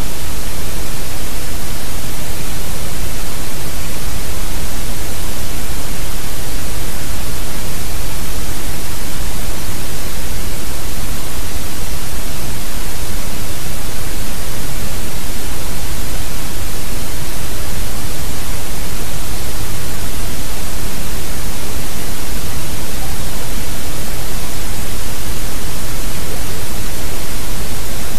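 Loud, steady hiss that covers the whole range evenly and never changes: the webcam's microphone noise or static, with no distinct event standing out.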